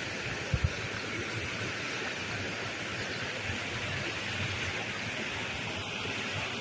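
Steady rushing of flowing river water, with two brief low thumps about half a second in.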